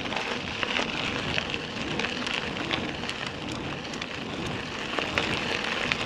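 Bicycle tyres rolling fast over a gravel track: a steady crunching hiss with many small ticks and rattles from stones and the bike.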